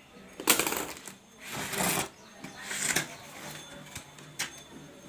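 A product box being opened and its contents pulled out: three bursts of rustling and scraping in the first few seconds, then quieter handling with a few sharp clicks and taps.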